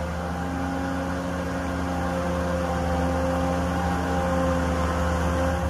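Engine of a Marine Travelift boat hoist running steadily: an even, pitched mechanical hum.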